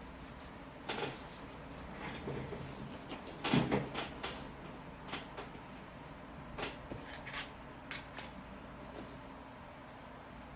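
Handling noise: a scattered series of short clicks and knocks of small hard objects, the loudest about three and a half seconds in.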